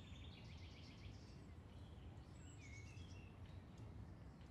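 Near silence: faint outdoor ambience, a steady low rumble with small birds chirping now and then.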